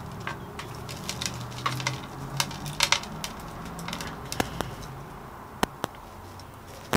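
Fingers digging into horticultural grit and compost in a terracotta pot: small stones clicking and crunching in irregular clusters, then a few single sharp clicks as the sempervivum is set in.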